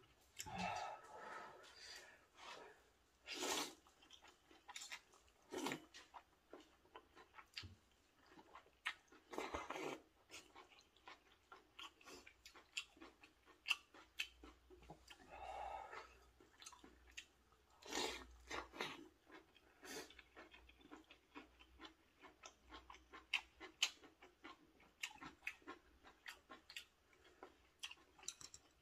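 Close, quiet eating of spicy rosé maratang noodle soup: noodles slurped several times in longer bursts, between steady wet chewing and smacking mouth sounds, with small clicks of wooden chopsticks and spoon.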